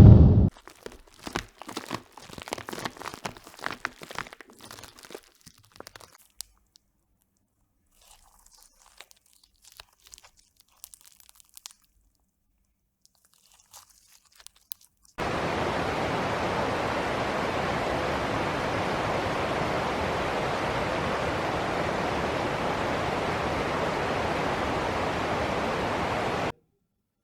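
Crisp crunching and crackling for about six seconds, then a few faint scattered clicks. About halfway through, a loud, steady hiss starts suddenly and cuts off suddenly near the end.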